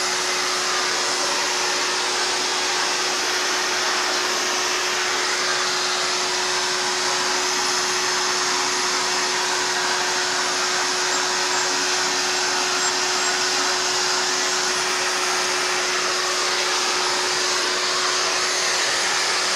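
Vacuum cleaner running steadily: an even rushing hiss with one constant whine held under it.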